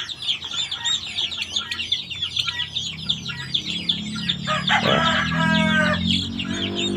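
Week-old Chinese Silkie chicks peeping continuously: many rapid, high, downward-sliding cheeps overlapping. An adult chicken gives a longer, lower call about five seconds in.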